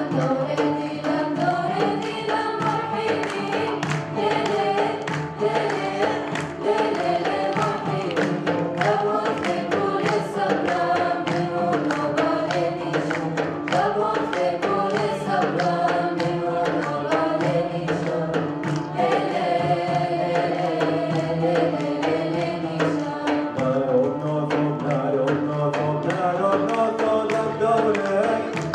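A choir singing a melody to a steady hand-drum rhythm, with a plucked string instrument accompanying.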